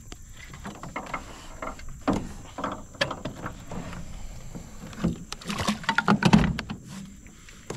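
Trolling motor being handled and set out on a boat: irregular knocks, clicks and rattles of the motor and its mount against the boat, with a cluster of louder knocks about five and a half to six and a half seconds in.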